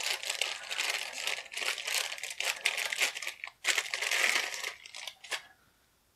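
Clear plastic bag crinkling and tearing as hands pull it open and draw out a plastic miniature tentacle piece; the crinkling stops shortly before the end.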